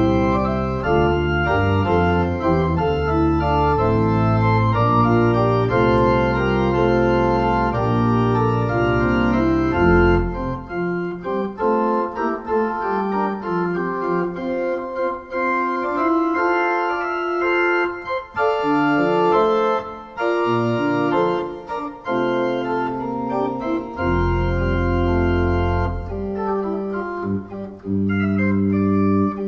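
Two-manual electronic home organ playing held chords in a Christmas piece. Deep bass notes sound under the chords, drop out about ten seconds in, and come back about five seconds before the end.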